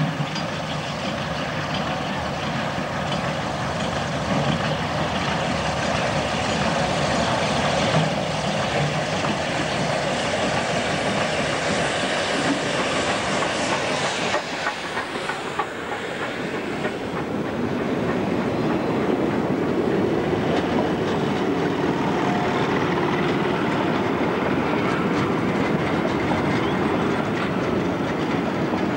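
C17 class 4-8-0 steam locomotive working past close by, then its carriages rolling by, the wheels clicking over the rail joints.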